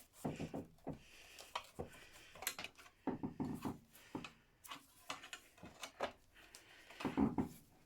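Scattered light knocks and clicks of hand tools and parts being handled during a workshop strip-down, with a louder clatter near the end.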